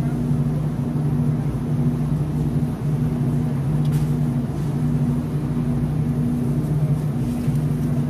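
Steady low hum of a refrigerated produce display case's cooling unit, with a few level tones that dip briefly every second or so.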